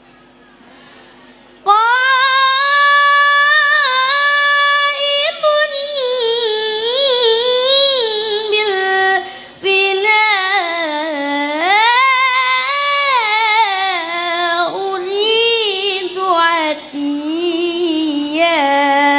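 A single female voice singing a long, ornamented melodic line in the style of an Islamic nadhom chant, entering about two seconds in and gliding up and down, with a short breath break about halfway through.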